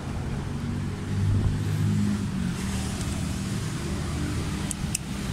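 A motor vehicle engine running, its low hum rising in loudness about a second in and its pitch shifting a little. A few sharp clicks near the end.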